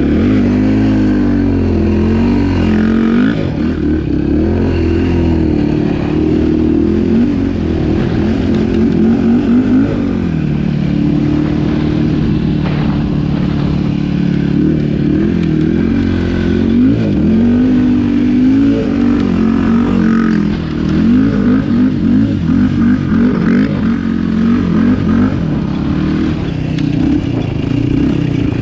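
Yamaha YFZ450 sport quad's single-cylinder four-stroke engine running under way, its pitch rising and falling as the throttle is opened and eased. In the later part it makes a run of quick short climbs and drops in pitch.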